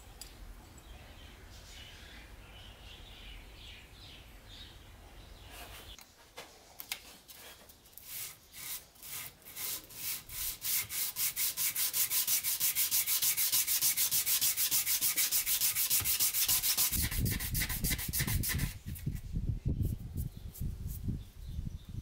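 A pocket-knife handle scale rubbed back and forth by hand on sandpaper: after a quiet start, the gritty strokes begin slowly about six seconds in and settle into a fast, even rhythm of about four or five strokes a second. Near the end the strokes give way to duller, deeper knocks.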